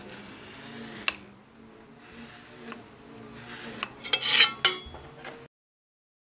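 Metal scraping and clinking over steady background music: a single sharp click about a second in, then a loud burst of ringing metal-on-metal rasping about three and a half seconds in. The sound cuts off suddenly near the end.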